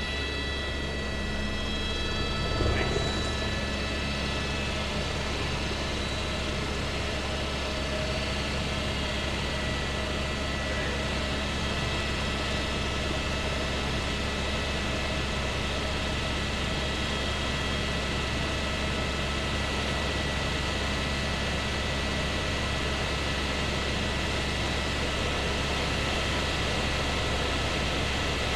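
Helicopter in flight heard inside the cabin: a steady low rotor and engine drone with constant high turbine whine tones over it. A brief knock comes a little under three seconds in.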